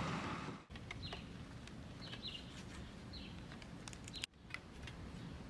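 A heat gun blowing steadily, cut off abruptly under a second in. Then faint outdoor quiet with several short high bird chirps and a few light clicks.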